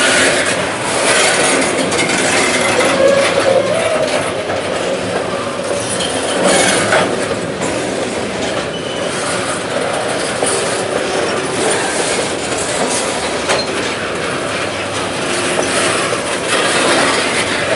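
Canadian National freight train cars rolling past, a steady noise of wheels on the rails.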